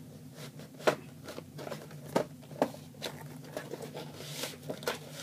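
A webcam's cardboard retail box being handled and opened: scattered light taps and clicks as it is turned over in the hands, over a low steady hum.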